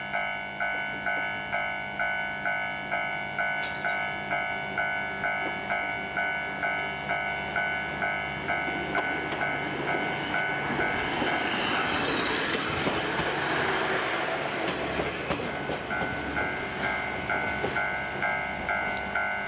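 Japanese level-crossing alarm bell ringing steadily about one and a half times a second while a Kominato Railway diesel train passes. The train's noise swells through the middle and drowns out the bell for a few seconds before the bell comes back.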